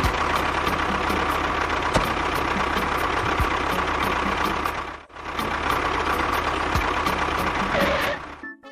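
Small motor of a DIY mini construction vehicle running steadily with a whirring hum, cutting out briefly about five seconds in, then starting again and stopping near the end.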